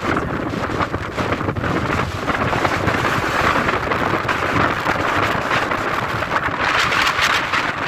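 Strong sea wind blowing hard on the microphone over heavy surf, with a rushing swell of breaking-wave noise from about three seconds in to near the end.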